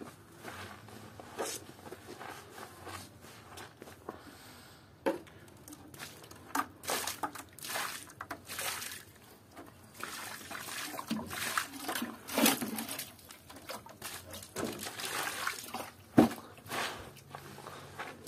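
Wet squelching and sloshing as a soapy plush toy is squeezed and scrubbed by hand in thick foam, in irregular strokes. About ten seconds in, water is poured over it from a bucket and the splashing gets louder. A single sharp knock comes near the end.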